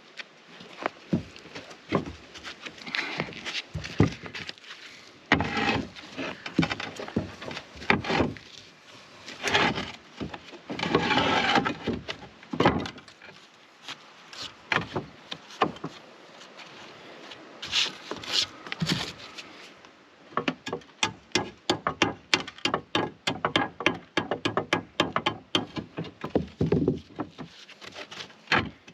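Recycled roof tiles being handled and fitted: knocks of tile against tile with a few longer scrapes, then, about two-thirds of the way in, a quick run of sharp taps, about four or five a second, as a tile is dressed to fit.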